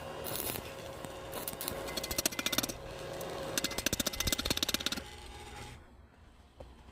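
Electric arc welding: a rapid, crackling buzz in bursts, which stops about five seconds in.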